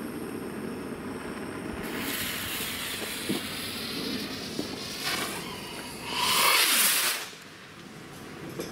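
Rubro Speed Rocket, a small firework rocket: its fuse fizzes from about two seconds in, and about six seconds in the rocket launches with a loud whoosh lasting about a second.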